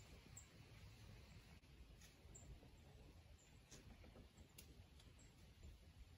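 Near silence in the woods, with a few faint, short ticks scattered through it.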